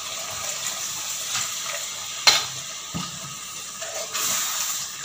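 Coconut milk being poured into a steel pot of hot masala gravy, a steady liquid pouring sound, with one sharp click about two seconds in.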